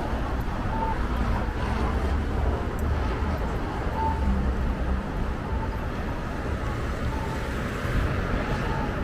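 Steady city traffic noise: a low, even rumble of road traffic, with a few faint short tones near 1 kHz.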